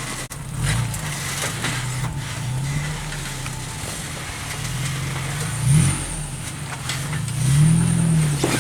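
Engine of an off-road vehicle crawling up a rock ledge, its pitch rising and falling as the driver works the throttle.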